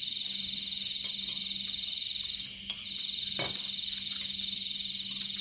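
Chorus of night insects trilling steadily at a high pitch, the trill breaking off briefly about halfway through, with a couple of faint clicks.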